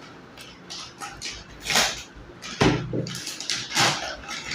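Rustling, scraping and knocks of a graphics card and its packaging being handled, with a knock about two and a half seconds in.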